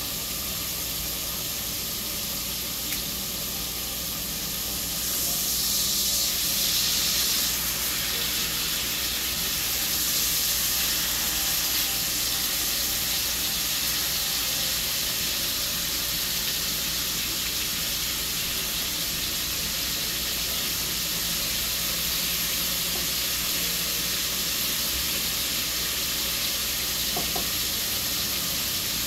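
Steak sizzling in a hot cast-iron skillet: a steady frying hiss that swells louder about five seconds in and again about ten seconds in.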